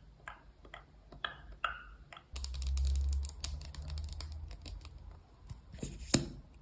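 A run of light taps and clicks, with a low rumble from about two seconds in until about five seconds, and one sharper click near the end.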